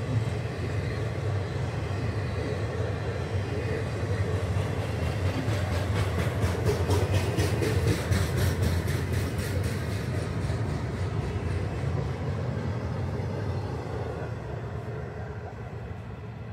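Florida East Coast double-stack intermodal freight train rolling past, a steady rumble of wheels on rail with a run of regular clicks from the wheels partway through. The sound fades near the end as the last cars go by.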